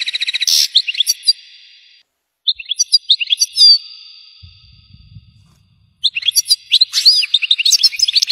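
European goldfinch singing in three bursts of fast, high twittering with short pauses between them. The first burst includes a rapid trill of evenly repeated notes.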